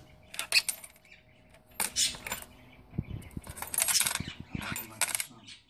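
Cockatiel pecking at and tossing small metal bells on chains: the bells jingle and clink in several short bursts, with a few dull knocks about three seconds in.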